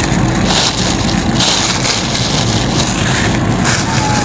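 A plastic bag of food crinkling and rustling in several bursts as it is handled, over the steady low road rumble of a passenger van on the move.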